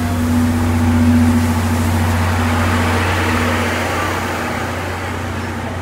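Passenger coaches of a departing steam-hauled train rolling slowly past: a steady low rumble with wheel and rail noise, slowly fading as the train draws away.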